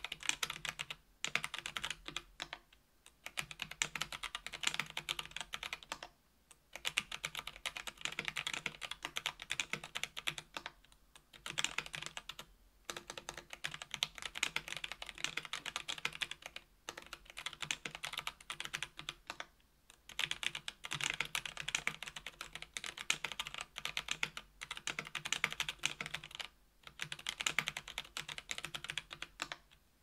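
Typing on a KBDfans Tofu 65% aluminum keyboard with stock NovelKeys x Kailh BOX Heavy Burnt Orange tactile switches (60g/80g), an aluminum plate and GMK keycaps. Fast keystrokes come in runs of several seconds, with short pauses between them.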